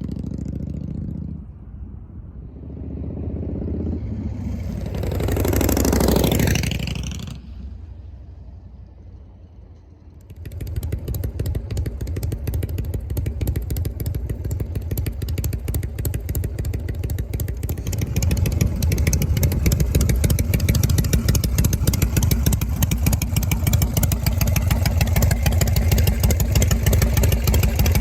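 Harley-Davidson Shovelhead V-twin with new inner silencers fitted in its mufflers. A vehicle goes by with a rising and falling rush about six seconds in. About ten seconds in, the Shovelhead's exhaust comes in suddenly and runs with a fast, deep pulsing beat, getting louder from about eighteen seconds.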